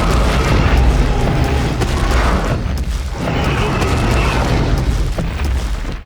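Loud designed sound effect: a deep, rumbling noise in two long swells that cuts off abruptly near the end.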